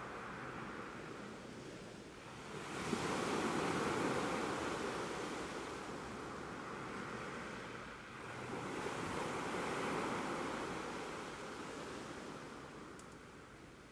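Ocean waves on a shore: two waves surge in, the first about three seconds in and the second about eight seconds in, each washing up and then slowly fading as it recedes.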